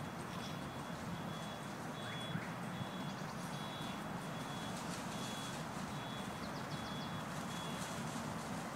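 Steady hum of distant city traffic with some wind, and a faint short high note repeating about once a second.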